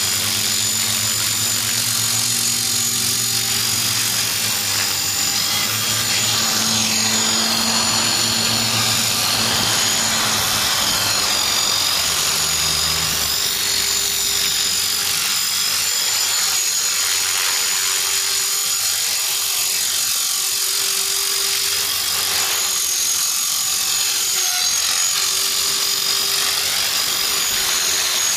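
Align T-Rex 450 electric RC helicopter hovering: the steady high whine of its motor and gears over the hum of the rotor blades, the hum shifting in pitch now and then. There is a ticking that comes from a very slightly bent main shaft.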